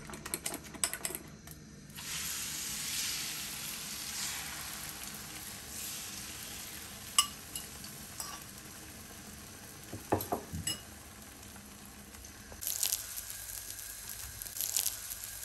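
Beaten eggs frying in hot ghee on a flat griddle (tawa). The sizzle starts about two seconds in and slowly dies down, with a few light clicks of utensils along the way.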